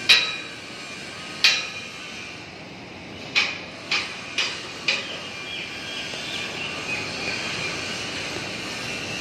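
Metal being struck: six sharp clanks with a short ringing tone, the first two about a second and a half apart, then four closer together between about three and a half and five seconds in. A steady background noise runs underneath.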